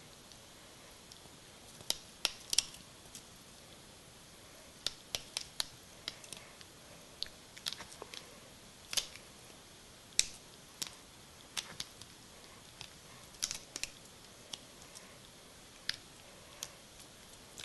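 Scattered sharp clicks and taps in irregular clusters as a kitten bats at and bites a blue plastic stick.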